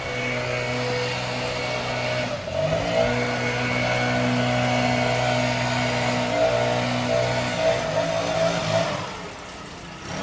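Gas leaf blower's small engine running steadily at high speed, throttling down and back up about two and a half seconds in, then easing off near the end.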